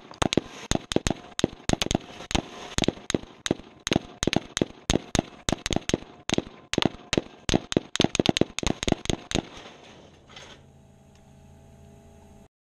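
Rapid gunfire, an uneven volley of about five shots a second, heard from beside the target, an old CRT television being shot up. The firing stops about nine and a half seconds in, with one last shot a second later, leaving a steady hum.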